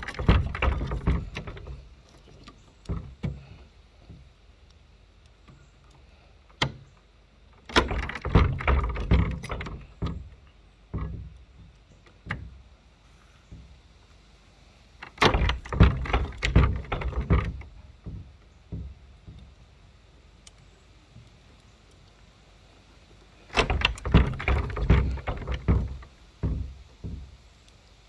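Master Lock dial combination padlock being yanked down again and again on sticks wedged in its shackle, rattling and knocking against a metal gate latch: repeated attempts to pull it open. The attempts come as four bursts of clicks and clanks about eight seconds apart, with single clicks between.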